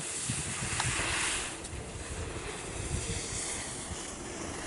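Wind buffeting the camera microphone in low gusts, with the hiss of skis sliding on snow that fades out about a second and a half in.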